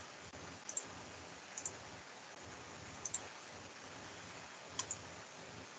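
Computer mouse clicking: four short pairs of clicks spread across a few seconds, over faint background hiss.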